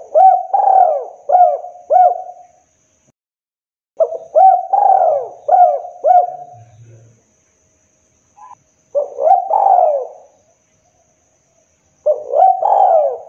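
Spotted dove cooing: four phrases, each a string of low coos that swoop up and down, with gaps of one to two seconds between them. The last phrase is cut off at the end.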